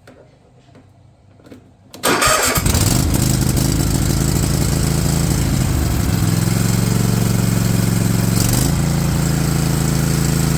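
Cub Cadet XT1 riding mower's engine, set to full throttle with the choke on, starting about two seconds in after a brief crank and catching at once, then running steadily. Its note shifts a little around six seconds in and again near eight and a half seconds.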